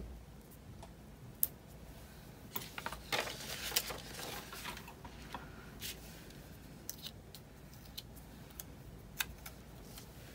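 Stickers and paper being handled on a planner page: scattered small clicks and taps, with a short stretch of rustling about three seconds in.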